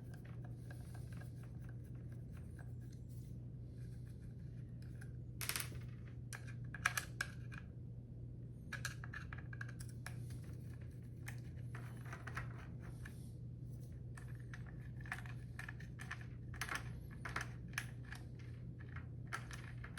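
Screwdriver backing out the small screws of an Andis T-Outliner clipper blade: scattered light metallic clicks and scrapes, over a steady low hum.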